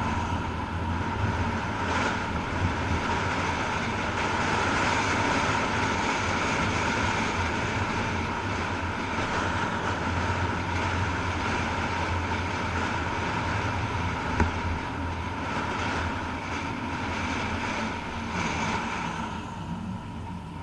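A car driving along a road: a steady low engine hum under the rush of tyres and wind. One short tick comes about fourteen seconds in, and the noise drops a little near the end.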